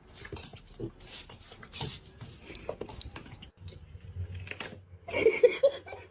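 Short animal sounds, with a louder run of short pitched cries about five seconds in.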